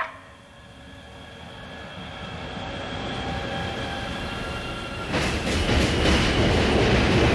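Intro music: a quiet swell that grows steadily louder, then a loud, noisy rhythmic beat cuts in about five seconds in.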